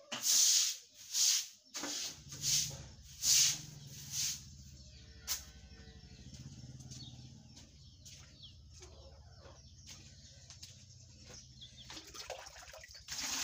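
A broom swishing through water on wet ground in about six quick strokes, then a quieter stretch with a low steady hum and a few faint knocks. A louder rush of noise comes about a second before the end.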